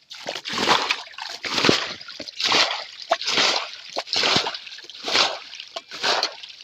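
Water splashing in a steady rhythm, one loud splash or slosh about every second.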